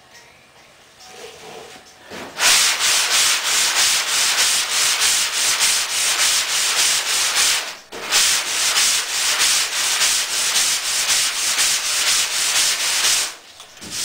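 A hand sanding block scrubbing back and forth over body filler on the sheet-metal cab roof of a 1963 Chevy pickup, in quick even strokes about four a second. It starts a couple of seconds in, pauses briefly in the middle, and stops just before the end.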